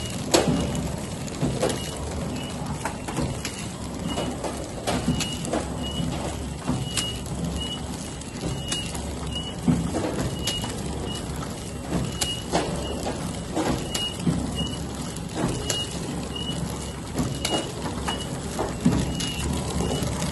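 Automatic flow-wrap pouch packing machine running, wrapping detergent cakes in film: a steady mechanical hum, a short high beep-like tone repeating a little more than once a second, and scattered sharp knocks from the mechanism.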